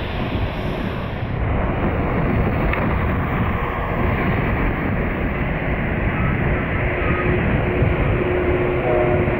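Boeing 787-9 Dreamliner's jet engines running as the airliner taxis past, a steady low rumble that grows a little louder about a second and a half in.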